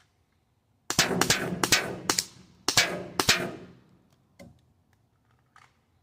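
Pistol fired about seven times in quick succession, in two strings with a short break between them, each shot trailing a ringing echo. Two faint knocks follow.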